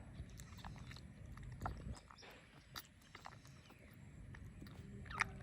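Faint smacking and small clicks of a baby monkey feeding, a few sharper clicks standing out, over a low steady background rumble.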